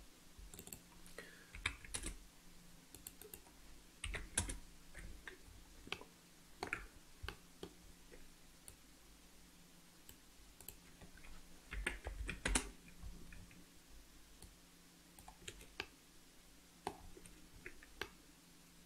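Computer keyboard keys and mouse buttons clicking in scattered, irregular taps, some bunched in quick runs of several strokes.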